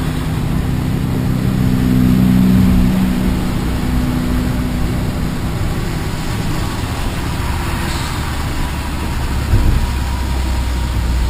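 Renault Kangoo 1.6 petrol engine running with steady road noise, its hum swelling about two seconds in and easing off, and a brief thump near the end.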